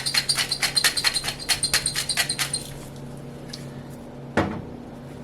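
Salt being dispensed over a bowl of caramel popcorn: a fast run of sharp clicks with a faint squeaky ring, stopping about two and a half seconds in. About four seconds in, a single knock follows.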